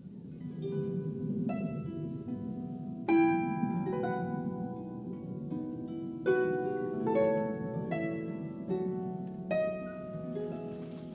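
Background music: a harp playing a slow sequence of plucked notes and chords.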